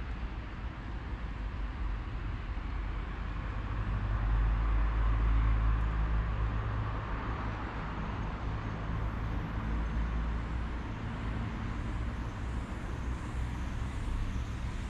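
Street traffic: a motor vehicle passes, swelling to its loudest about five seconds in, over a steady low rumble.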